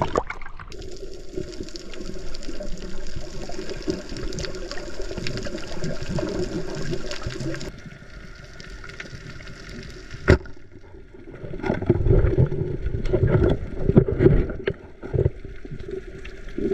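Water sloshing and hissing around a half-submerged action camera. After a cut, about ten seconds in there is a single sharp snap of a speargun firing underwater, then uneven rumbling and churning of water as the speared moray eel thrashes.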